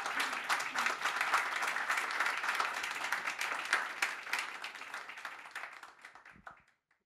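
Small audience applauding, many hands clapping densely, then thinning out and fading away near the end.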